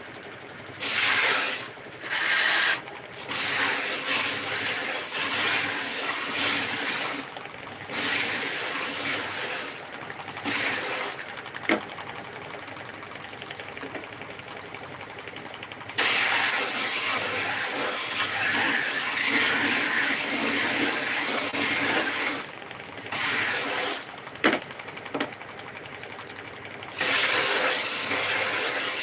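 A long-bed belt sander running, with a loud scratchy noise each time a small wooden piece is pressed against the moving belt to sand off old varnish. The sanding comes in repeated passes of half a second to several seconds, the longest about six seconds, with a quieter stretch of the machine running alone in the middle.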